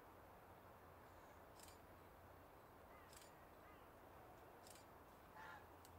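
Near silence: faint background hiss, with a few soft ticks about every second and a half and a short faint chirp near the end.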